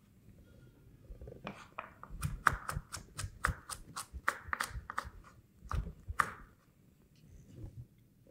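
Kitchen knife chopping vegetables on a cutting board: a run of quick, sharp knocks, about four a second. It starts about a second in and stops about six seconds in.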